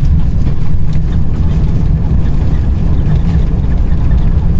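Airbus A350 cabin noise heard from a passenger seat during landing: a loud, steady low rumble.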